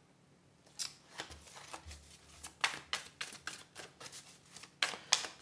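Tarot cards being shuffled by hand: an irregular run of soft card snaps and rustles, starting about a second in and loudest near the end.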